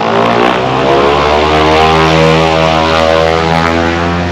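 Float plane's propeller engine droning loudly as it flies past, a steady low drone whose pitch bends slightly as it goes by.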